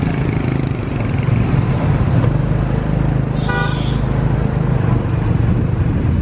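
Motorbike engine running steadily with road and wind noise while riding through city traffic. A vehicle horn toots once, briefly, about three and a half seconds in.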